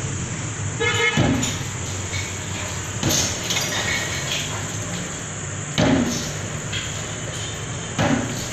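Demolition blows: a hand tool striking the concrete roof four times, two to three seconds apart, over a steady background hum.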